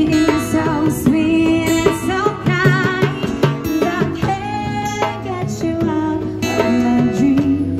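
A woman singing live into a microphone over an acoustic guitar accompaniment, with vibrato on held notes about three seconds in.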